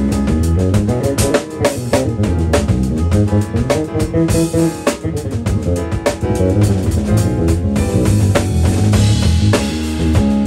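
Live funk jam on electric bass guitar and drum kit: a busy bass line over a driving drum groove of kick, snare and rimshots. Cymbals wash over it about four seconds in and again near the end.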